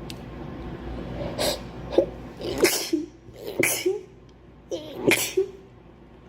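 A young woman sneezing repeatedly, about five sneezes in quick succession, with short vocal sounds between them.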